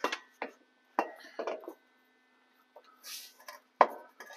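Scattered short knocks and light clanks of hands handling metal parts under a truck chassis, with a brief rustle about three seconds in and a sharp click near the end.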